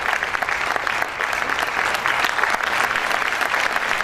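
Audience applause: many hands clapping steadily, with no let-up.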